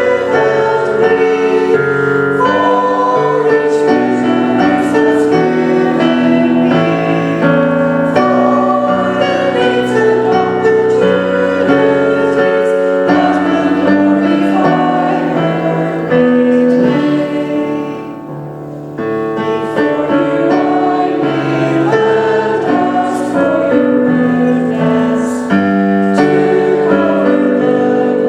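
Church choir singing a hymn with keyboard accompaniment. The music dips briefly at a phrase break about two-thirds of the way through.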